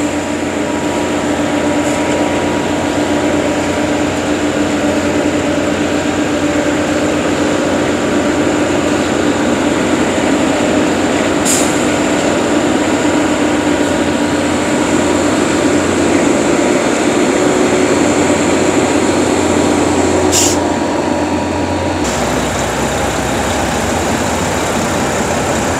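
Concrete mixer truck running: a steady heavy diesel engine and mechanical rumble, with a short high hiss twice. The sound changes abruptly near the end.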